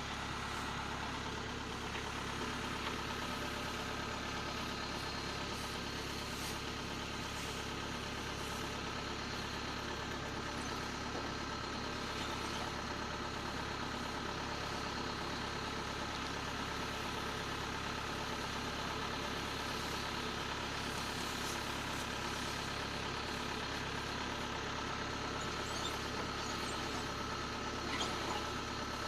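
Engine of a rice harvesting machine running steadily at an even pitch.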